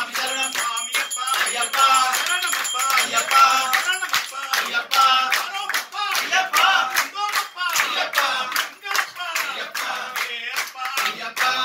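A group of voices singing a devotional bhajan in unison, kept in time by steady hand-clapping.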